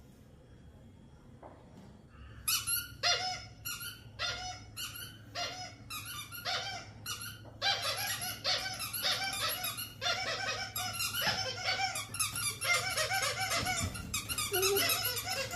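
Repeated high-pitched squeaks starting about two seconds in. At first they come roughly twice a second with short gaps, then from about halfway through they come fast and nearly without pause.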